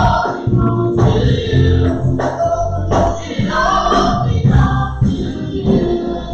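Recorded gospel choir song: choir voices singing over a band with bass and drums.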